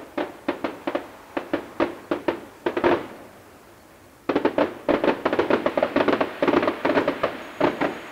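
Fireworks going off: a run of sharp bangs, about three or four a second, then a pause of about a second, then a dense, rapid volley of bangs from about four seconds in until near the end.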